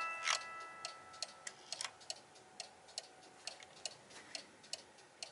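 Weight-driven clock movement ticking steadily, about two to three ticks a second. The last notes of its music fade away at the start, and there is one sharp click about a third of a second in.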